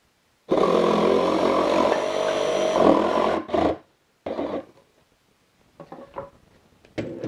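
DeWalt 20V XR cordless jigsaw (DCS334) running and sawing through a wooden board for about three seconds, then stopping suddenly. A few wooden knocks follow as the cut-off pieces are handled.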